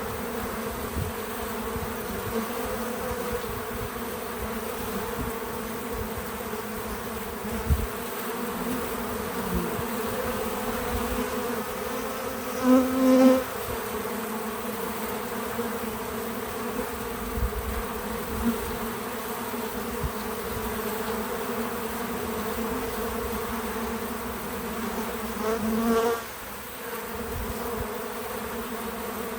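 Bees buzzing steadily at a feeder, a busy constant hum. Twice, about halfway through and near the end, a bee passes close and its buzz swells louder for about a second.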